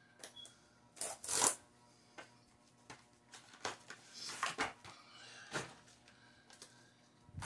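Cardboard collector booster display box being handled and pried open: a string of short scrapes, rustles and clicks of cardboard, the loudest about one and a half seconds in.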